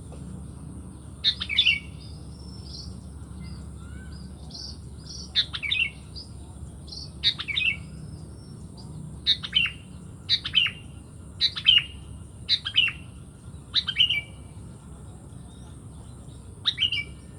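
Sooty-headed bulbul (kutilang) calling: sharp two-note phrases repeated about every one to two seconds, with softer whistled notes in between.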